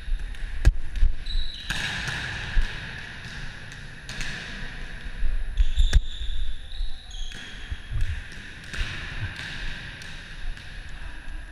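Volleyball being played in a gym hall: several sharp hits of hands on the ball, the clearest about six seconds in as the ball is set overhead, with short high squeaks and rustling between the hits.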